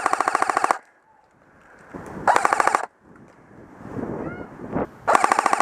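Tokyo Marui G3 electric airsoft rifle firing full-auto bursts of rapid shots: one ending under a second in, a short burst about two and a half seconds in, and another near the end.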